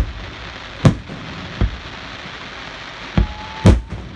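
Aerial fireworks shells bursting, five sharp booms in about four seconds, the last two close together, over a steady hiss.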